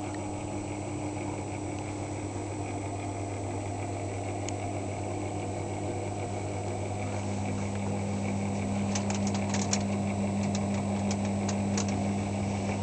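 A steady low machine-like hum that grows a little louder about seven seconds in, with a scatter of sharp clicks near the end.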